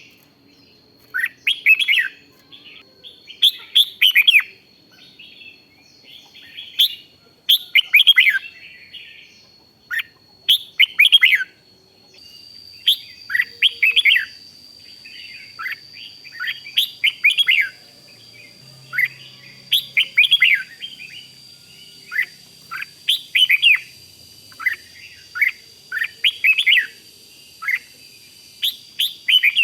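Red-whiskered bulbul singing: short, quick whistled phrases of falling and rising notes, repeated every one to two seconds.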